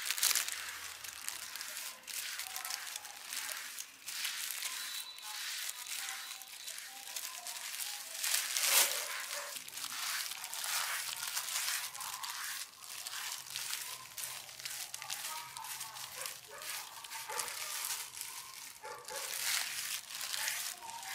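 Wood fire crackling and snapping in an irregular stream, with one louder snap about nine seconds in. Faint voices sound in the background.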